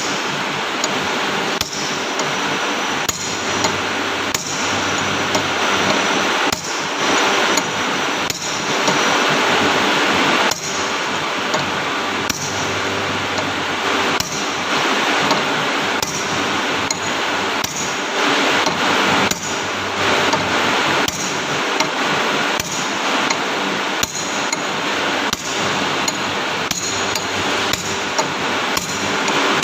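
Hammer striking metal repeatedly, about one blow every second or so, over a steady hiss of background noise.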